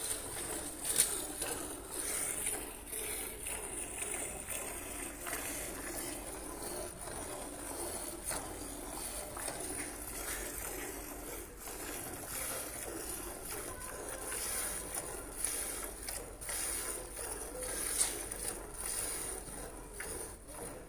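A cow being milked by hand: short streams of milk squirting into a pail, stroke after stroke, with a sharper stroke about a second in and another near the end.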